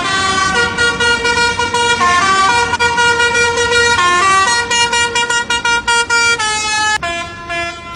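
Musical truck horn playing a quick tune of stepping notes, some held and some short and repeated, over a steady low rumble.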